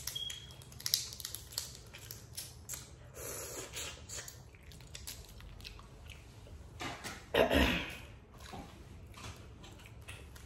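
Boiled crawfish being peeled and eaten close to the microphone: shells crackling and snapping between the fingers, with chewing. About seven and a half seconds in there is one louder burst of noise that lasts about half a second.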